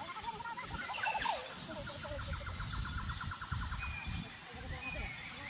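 Birds calling: a few chirps, then a fast trill of short repeated notes lasting about two seconds, with higher chirps near the end. A low rumble of wind on the microphone runs underneath.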